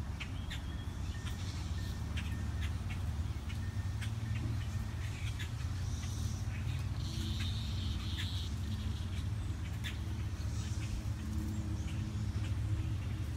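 Outdoor ambience: scattered short, high bird chirps over a steady low rumble and hum.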